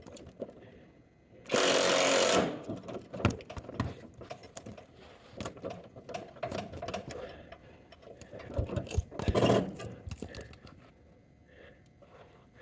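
Rhythmic mechanical clicking and clatter from a car jack being worked under a zero-turn mower, with a loud noisy burst of about a second about a second and a half in and a shorter one about three-quarters through.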